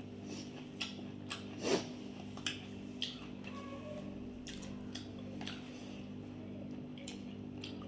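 Close-up chewing and mouth sounds of someone eating fried rice and chilli chicken: irregular wet smacks and sharp clicks, the loudest about two seconds in, over a steady low hum.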